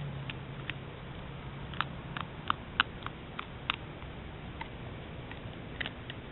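Coyote chewing on a rat: irregular sharp crunches and clicks of its teeth, about a dozen, coming thickest between two and four seconds in, over a low steady hum.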